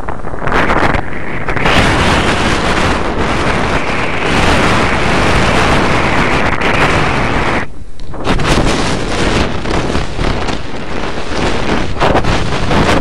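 Heavy wind rushing over a helmet camera's microphone on a downhill inline skate run at about 50 km/h, a loud steady roar with a brief drop in the hiss about eight seconds in.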